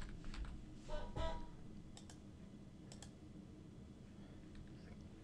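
A few sparse, faint clicks of a computer keyboard and mouse as a web address is typed into a form field.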